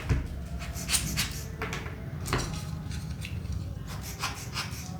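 Small clicks, taps and rubbing of a cleaning tool working over a plastic earbud charging case and its charging pins, with light handling knocks.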